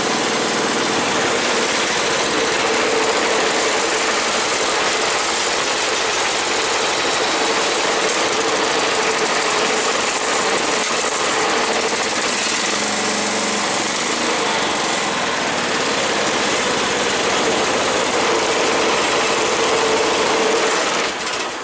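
John Deere 216 lawn tractor engine running steadily just after a cold start on choke, with a steady whine over the engine noise; the owner hears noise from the PTO, which he thinks could just need gapping. The engine cuts off near the end.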